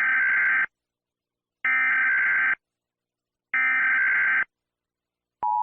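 Emergency Alert System SAME header: three identical screechy digital data bursts, each about a second long with a second's gap between them, announcing the start of a new alert. Near the end the steady two-tone EAS attention signal (853 and 960 Hz) begins.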